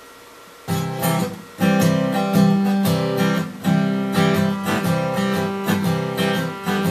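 Acoustic guitar strummed with the fingers, coming in just under a second in with a run of rhythmic chords: the instrumental opening of a country song.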